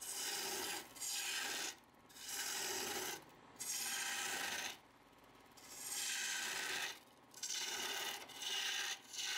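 A woodworking tool rasping against wood in about eight strokes, each lasting around a second, with short pauses between them.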